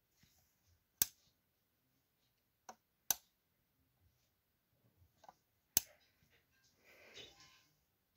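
Switch of a portable T5 4 W fluorescent tube lamp clicking as it is pressed: three sharp clicks about two to three seconds apart, with a few fainter ticks between them. There is a short rustle of handling near the end.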